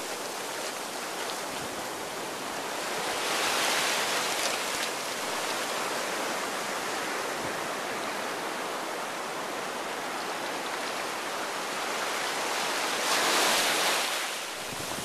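Small waves of surf washing up a sandy beach: a steady hiss of foam and water, with two louder swells as waves come in, about three seconds in and again near the end.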